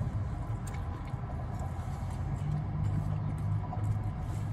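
Engine idling with a steady low hum, with a few faint clicks of chewing over it.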